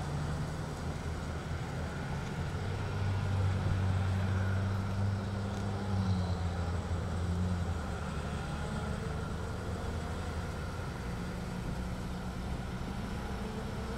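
Engine of a small ride-on aircraft tow tractor running steadily as it pulls a light plane along the road. Its low hum grows louder about three seconds in and eases off after about seven seconds.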